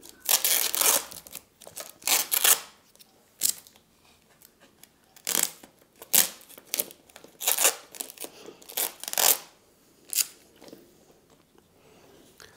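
Adhesive tape being peeled off a sealed container lid, in about a dozen short rasping pulls with pauses between them.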